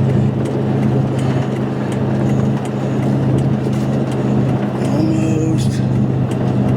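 2004 Ford F-150's 5.3 Triton V8 engine running with a steady low drone as the truck climbs a hill, down on power and rough: a fault put down to a failing variable valve timing solenoid.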